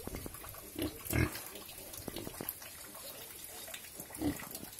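Pigs grunting: three short grunts, the loudest about a second in.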